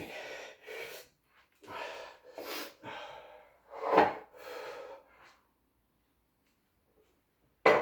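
A man breathing hard, out of breath after a 20-minute burpee workout: about six heavy breaths in and out, the loudest a sharp exhale about four seconds in, stopping a little after five seconds.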